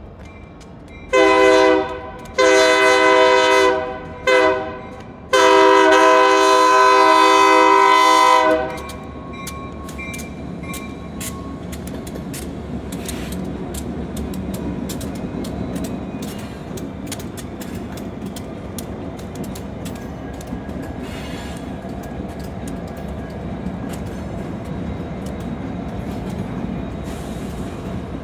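Diesel freight locomotive's horn sounding the grade-crossing signal, long, long, short, long, the last blast held about three seconds. The train then rolls past, a steady rumble with wheels clicking over rail joints.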